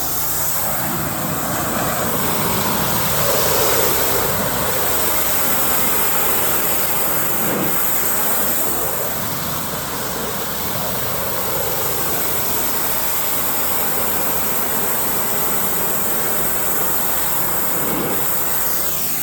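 Pressure washer spraying water: a steady, loud hiss of spray over the running engine of the machine.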